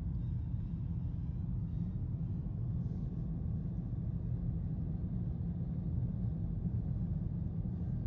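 Steady low rumble of a car on the move, heard from inside the cabin: road and engine noise.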